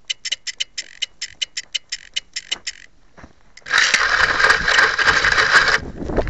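A run of light, quick clicks, about five a second, for roughly three seconds. Then a loud rush of wind and handling noise on the onboard camera of a discus-launch glider as the glider is lifted out of the grass and swung.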